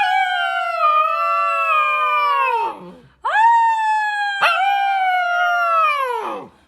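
A dog howling: two long howls, each held for about three seconds and sliding down in pitch as it dies away.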